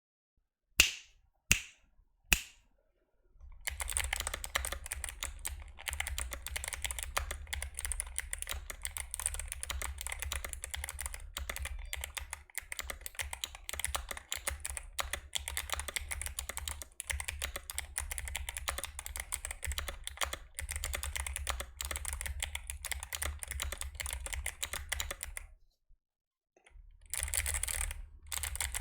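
Typing on a mechanical keyboard with Novelkeys x Kailh Box Jade clicky switches. It starts with three single keystrokes, then fast continuous typing with sharp clicks, a pause of about a second, and more typing near the end.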